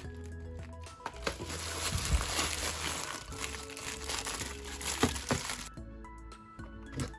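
Thin clear plastic bag and plastic wrap crinkling as a boxed gel pen set is pulled out and handled, with a few sharp plastic clicks, over soft background music. The crinkling is densest through the middle and stops near the end, leaving the music.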